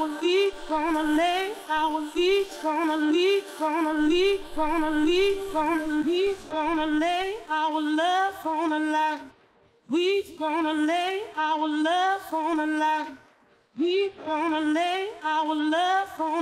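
A woman's lead vocal singing in phrases, isolated from a full track by LALAL.AI's mild vocal separation, with short pauses between phrases about two-thirds of the way in and near the end. Artifacts of the separation remain: faint traces of a stab at the start of bars and an underlying element of the drums.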